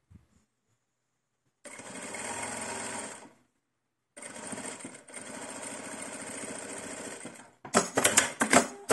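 Electric sewing machine stitching a seam in two runs, a short one and then a longer one after a brief stop. Near the end there is a quick cluster of sharp clicks.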